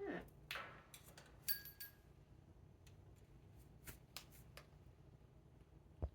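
Parrot chewing on a leather and wood toy: scattered small clicks and snaps of the beak on the wood, with a soft falling vocal note at the start and a short high squeak about a second and a half in. A thump near the end.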